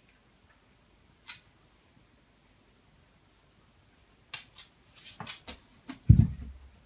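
A dog pawing at and pressing down on a cat eating from a steel food bowl in a red stand: a single click, then a quick run of sharp clicks and knocks, ending in a heavy thump near the end.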